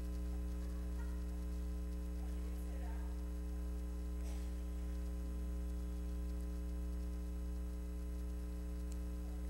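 Steady electrical mains hum, a low buzz with a ladder of overtones, unchanging throughout.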